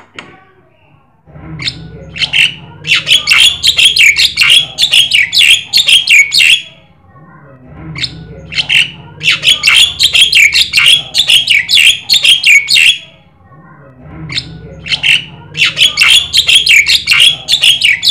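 Javan myna (jalak kebo) singing in three long bouts of rapid, sharp chattering notes, each about five seconds long, with short pauses between them.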